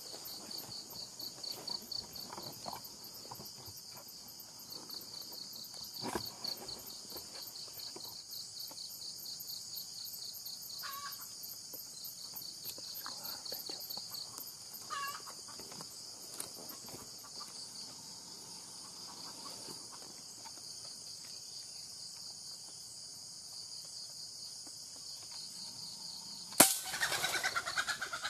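A steady pulsing insect chorus over faint rustling footsteps in undergrowth, with a couple of short bird chirps. Near the end a single sharp gunshot, the shot striking a twig rather than the bird, followed at once by a junglefowl's loud clucking alarm calls.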